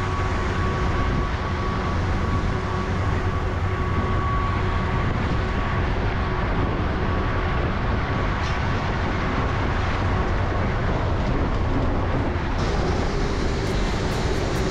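Red MSRTC state-transport bus ('Lalpari') on the highway, heard from inside: steady engine and road noise, heavy in the low end, with a faint steady whine.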